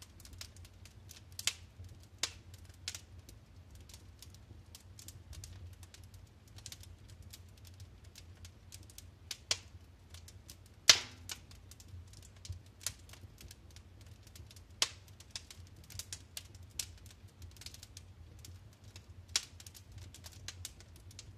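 Wood fire burning in a fireplace, crackling with irregular sharp pops and snaps, the loudest about eleven seconds in, over a low steady rumble.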